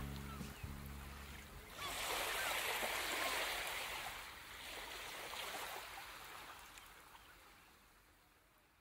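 The last low notes of the song die away in the first couple of seconds. Then running water trickles and splashes, fading out slowly.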